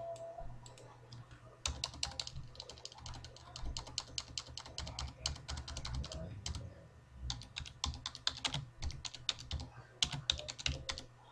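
Typing on a computer keyboard: runs of quick keystrokes starting about two seconds in, with a short pause about two-thirds of the way through, over a low steady hum.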